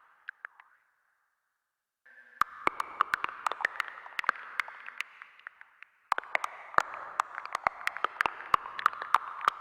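Synthesizer sound effect: a hiss-like band of noise crackling with scattered sharp clicks and blips. It drops out for about a second near the start, comes back about two seconds in and fades, then starts again abruptly about six seconds in.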